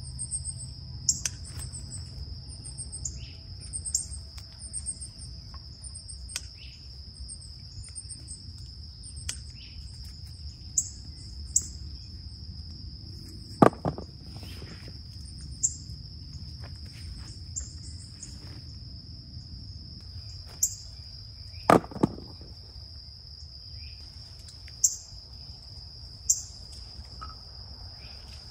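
Insects trilling steadily at a high pitch, with quick bird chirps over the first several seconds and scattered sharp clicks; two louder knocks come about halfway and about three quarters of the way in.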